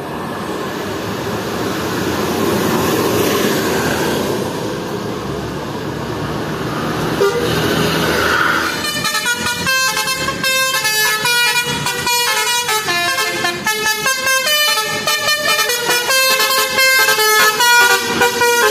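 A bus going by with rising engine and tyre noise, then about nine seconds in its telolet horn, a multi-note musical air horn, starts playing a quick tune of stepped notes that carries on.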